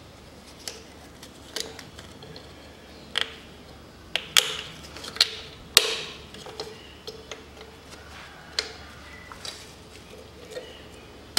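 Irregular sharp clicks and light metallic knocks as hand tools and engine parts are handled during engine assembly, the loudest knock a little under halfway through.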